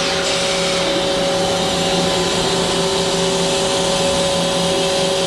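Mazak Quick Turn Nexus 200-IIM CNC turning center running with a steady mechanical hum, several steady tones over a hiss.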